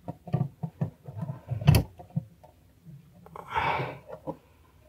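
Small clicks and knocks of a brass clock movement's plates and wheels being handled with gloved hands, with one sharper click just under two seconds in and a short hiss near four seconds.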